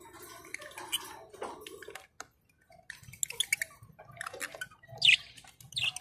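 Small caged parrots, budgerigars and lovebirds, giving scattered short chirps and clicks, with a brief lull about two seconds in and a louder burst of chirping about five seconds in.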